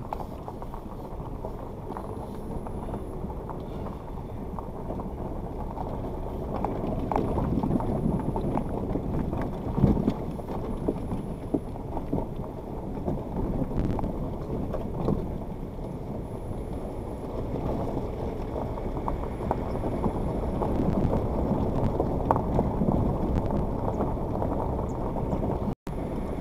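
Suzuki Jimny crawling over a rough gravel riverbed track, heard from inside the cabin. The engine runs low under a steady rumble of tyres on stones, with scattered knocks from the body and suspension over bumps and a louder jolt about ten seconds in. The sound cuts out for a moment near the end.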